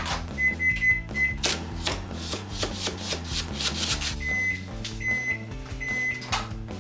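Microwave oven beeping: four short keypad beeps as it is set, then, after some knife chopping on a wooden cutting board, three longer beeps as the microwave finishes its cycle.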